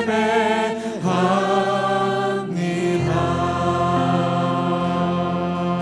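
Sung worship song: a voice holds long notes with vibrato over sustained instrumental accompaniment. About three seconds in, the singing gives way to steady held chords.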